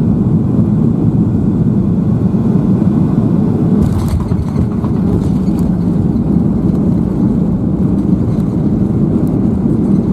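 Steady low cabin noise inside a Boeing 737-800 landing, its CFM56 engines and the airflow heard from a seat over the wing. A brief change about four seconds in marks the touchdown on the runway.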